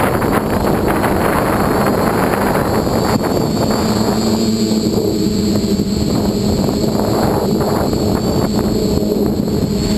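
Dead Cat 450 quadcopter's motors and propellers humming steadily, heard through the onboard camera, with wind rushing over its microphone. The hum stands out more clearly from about four seconds in.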